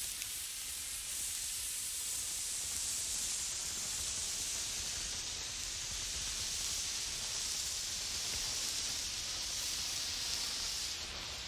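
Steady high-pitched hiss that starts abruptly and holds level, with no distinct events in it.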